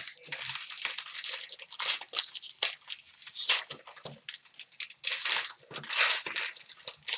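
A trading-card box's packaging being torn open and its wrapper crinkled by hand, an uneven run of tearing and crackling.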